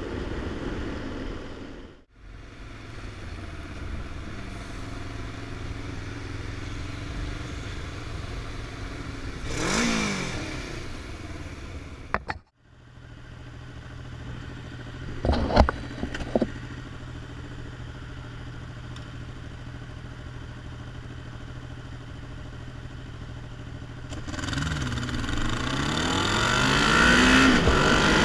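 Motorcycle engine running under way with road noise, broken by two brief dropouts. A pitch sweep passes about ten seconds in, and a few sharp knocks come a little after the middle. Over the last few seconds the engine revs up, rising in pitch and growing louder.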